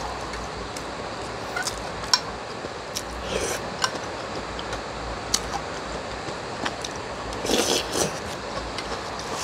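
Metal spoon clicking and scraping against a plastic container of noodle soup, with two slurps of broth, about three and a half and seven and a half seconds in, over a steady hiss of heavy rain.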